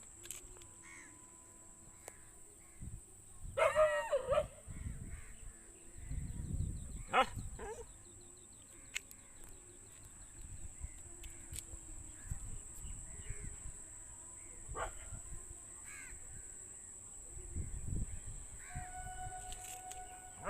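A few short, scattered animal calls with long quieter gaps between them, the loudest about four seconds in. A steady high hiss runs underneath.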